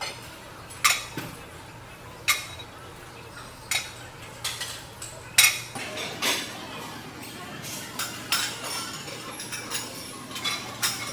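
Iron weight plates clinking against a barbell as it is lifted and lowered through a set of bent-over reps. There is a sharp metallic clink about every second and a half, then smaller, quicker clinks in the second half.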